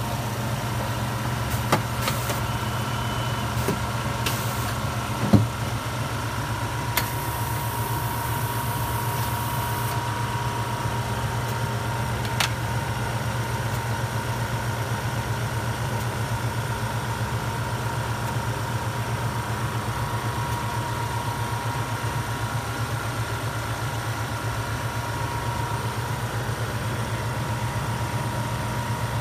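Automated pizza-making machine running with a steady mechanical hum and faint steady whine. A few sharp clicks come in the first seconds, the loudest a knock about five seconds in, and a brief high hiss starts about seven seconds in.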